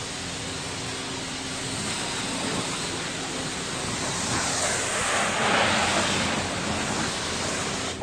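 High-pressure wand at a self-service car wash spraying water with a steady hiss. It grows louder about halfway through and drops off sharply at the end.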